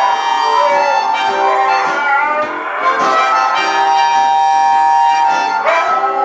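Several huskies howling together in long, wavering notes that bend and glide in pitch, over blues music with harmonica.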